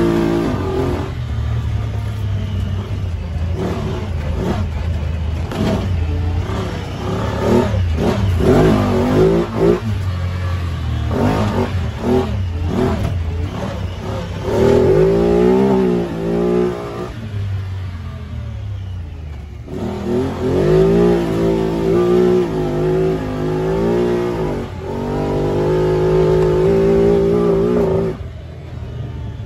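Honda side-by-side's engine under way on a rough dirt trail, its pitch rising and falling in repeated surges as the throttle is worked. Short rattles and knocks from the machine run through it, and the engine eases off near the end.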